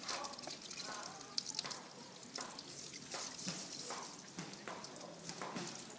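Water from a garden hose running over a dog being bathed and dripping and splashing onto concrete, with many small sharp splashes.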